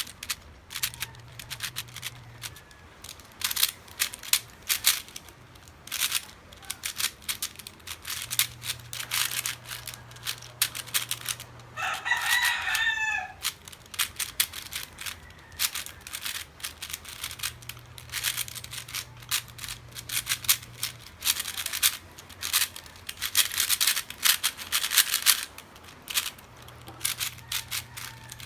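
Rapid, irregular clicking and clacking throughout, with a rooster crowing once about twelve seconds in.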